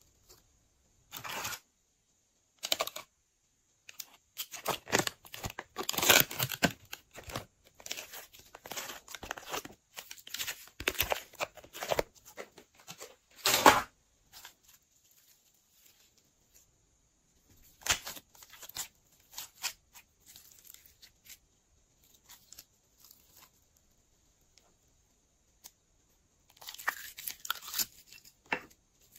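Hands squishing, pressing and stretching glossy slime: sticky crackles and squelches in bursts, densest in the first half, with quiet gaps between.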